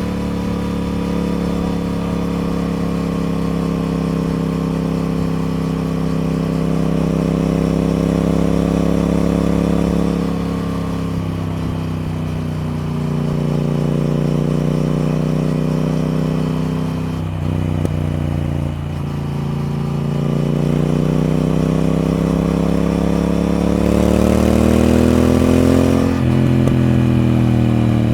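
Triumph Speed Twin parallel-twin engine running under way, its pitch rising and falling with the throttle. It climbs steadily for several seconds, then drops suddenly near the end.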